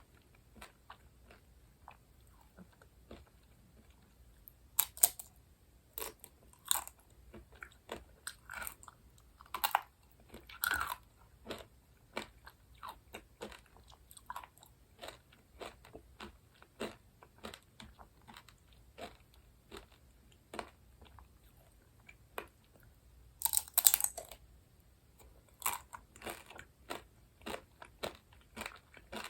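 Close-miked chewing and biting of sweets: a steady run of short, wet mouth clicks, with a few louder bites, the loudest cluster about three-quarters of the way through.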